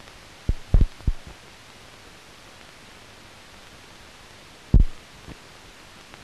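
Steady hiss of an old film soundtrack, broken by a few short, dull thumps: a quick cluster of three or four about half a second to a second in, and a stronger single thump near five seconds with a softer one just after.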